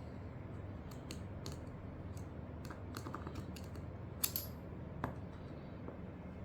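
Light, scattered clicks and taps of a hand tool and small kit parts being picked up and handled on a workbench, with a sharper click about four seconds in.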